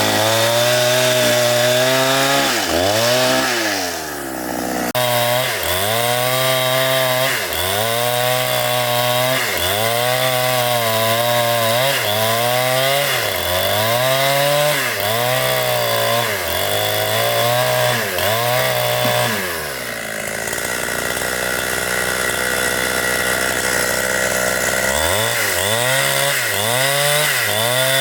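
Two-stroke chainsaw cutting into wood at high revs, its engine pitch sagging under load and recovering in a regular rhythm about every second and a half. The pitch holds steadier for a few seconds about two-thirds of the way through before the rhythm returns.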